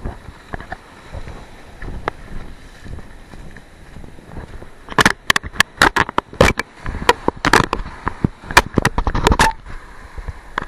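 A steady low rush, then about halfway in a run of loud, irregular sharp clicks and knocks for four or five seconds.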